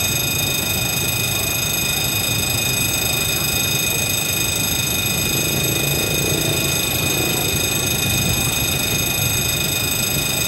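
D10H (DFH21) diesel-hydraulic shunting locomotive running at a distance as it creeps toward the crossing: a steady low engine rumble. A steady high-pitched ringing tone sits over it throughout.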